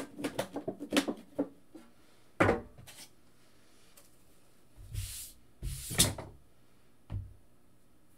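A sealed cardboard box of hockey cards being cut open with a knife and handled on a tabletop: scattered knocks and thumps with a brief scrape, the loudest thump about six seconds in.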